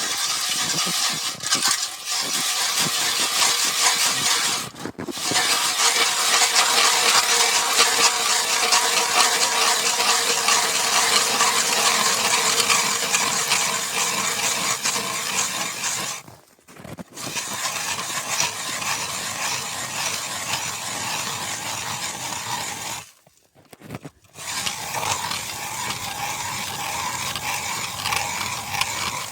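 A large 180 mm ice auger boring through river ice: a continuous grinding, scraping crunch of the blades cutting ice, broken by three short pauses.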